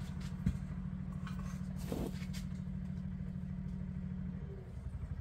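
An engine running steadily with a low, even hum, easing off slightly near the end. There is a sharp knock about half a second in and a short rustling burst about two seconds in.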